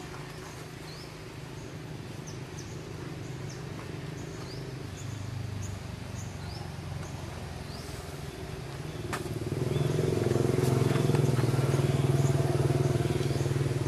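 A motor engine running steadily, growing much louder about nine seconds in, with short high chirps repeating over it in the first half.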